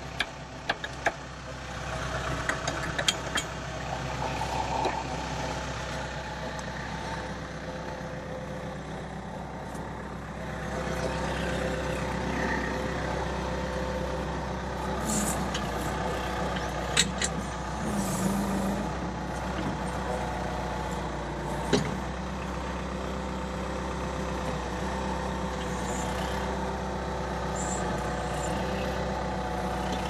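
Skid steer loader engine running steadily at idle, with a few sharp metallic clicks and knocks in the first seconds and two more single knocks later on.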